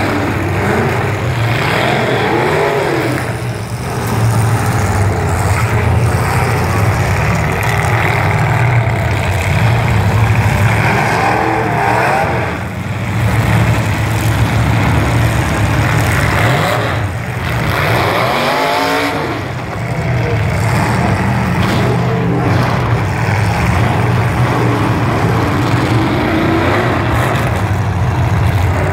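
Demolition derby truck engines running hard, with revs climbing and falling several times.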